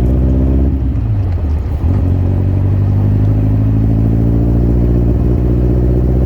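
Birkin Seven sports car engine running under way, a loud, steady note that dips and wavers briefly about a second in, then holds steady again.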